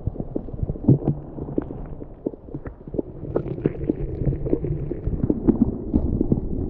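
Muffled underwater sound picked up by a submerged camera: a low rumbling slosh of water with many irregular knocks and clicks as a hand moves a largemouth bass through the water.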